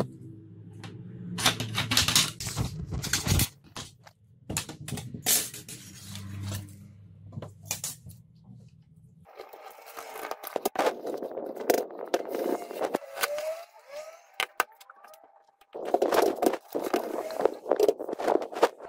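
Computer parts being handled on a table, with clicks and knocks, while a low hum runs under the first half. After that comes a cloth rubbing over the metal casing of an optical drive, and near the end a run of louder scrapes as a metal card reader is slid and set down.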